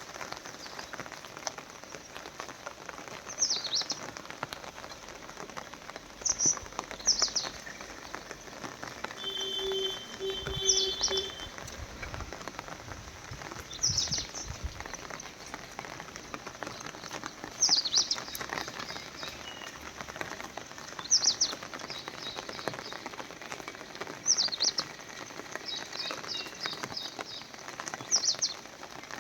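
A bird calling over and over: short, high, falling notes about every three to four seconds, some followed by a faint quick trill, over a steady fine patter like light rain.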